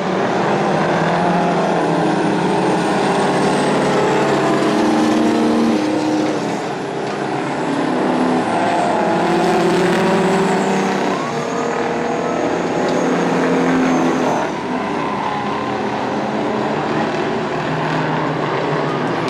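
Several racing semi-truck tractors' diesel engines running hard together. Their engine notes shift up and down in pitch as they accelerate and lift, with a couple of brief dips in loudness.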